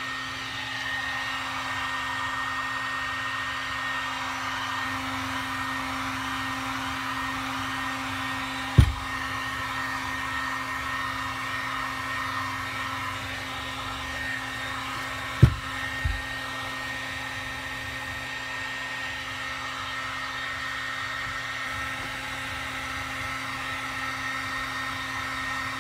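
Electric heat gun blowing steadily, heating a motorcycle gearbox housing to loosen a bearing. Three sharp knocks cut through it, one about nine seconds in and two close together around fifteen to sixteen seconds in.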